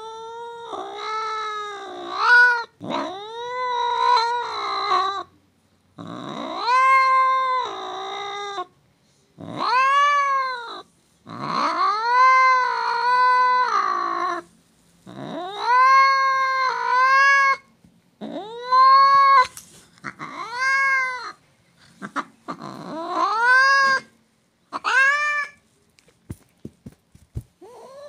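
Domestic cat angrily yowling, a long series of drawn-out calls, each rising and then falling in pitch, with short breaks between them and a longer pause near the end.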